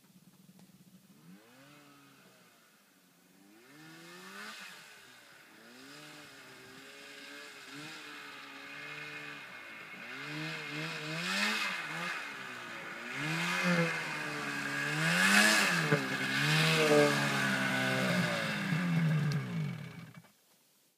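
Polaris RMK Dragon 800 snowmobile's two-stroke engine revving up and down again and again in deep powder, growing louder as the sled comes closer, then cutting off suddenly near the end.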